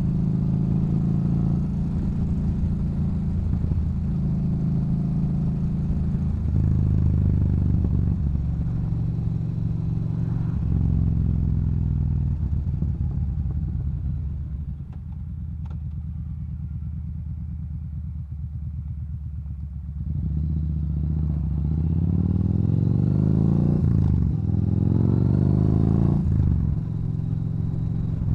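Yamaha Bolt's air-cooled V-twin through a Cobra aftermarket exhaust, under way. It runs steadily with a few gear changes, goes quieter as the throttle is eased off about halfway through, then pulls hard near the end, rising in pitch and shifting up twice.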